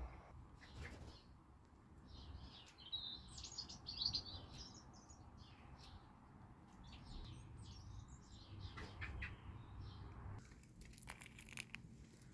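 Small birds chirping and twittering faintly, in one spell of busy chirps and then a second, lighter spell. A few sharp clicks come near the end.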